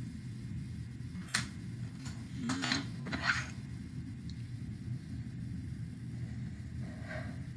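Wooden coloured pencils clicking and clattering against each other and the tabletop as one is put down and another picked up, a few sharp clicks between about one and three and a half seconds in, over a steady low room hum.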